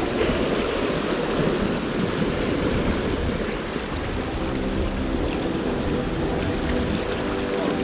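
Ocean surf washing steadily against the shore.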